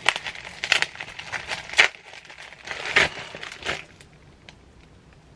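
Packaging being handled and opened: a series of crinkling, rustling strokes that die away after about four seconds.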